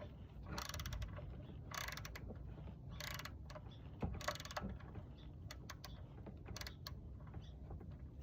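Socket ratchet clicking as an oil drain plug is turned: several short bursts of rapid clicks in the first four or so seconds, then scattered single clicks.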